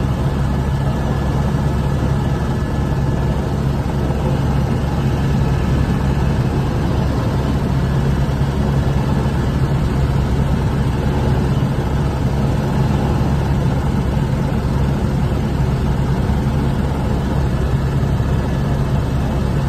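Inside the cockpit of an Airbus AS350 Écureuil helicopter in flight: the main rotor and turbine engine running steadily, a constant low drone with a faint high whine above it.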